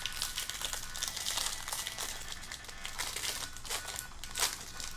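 Foil wrapper of a 2022 Topps Series 1 baseball card pack crinkling as it is torn open by hand, a run of irregular crackles.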